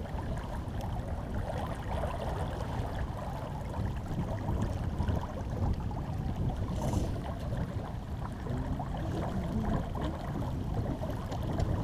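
Water rushing along the hull of a Laser 28 sailboat under sail, with wind on the microphone: a steady, low, churning noise. There is a brief hiss about seven seconds in.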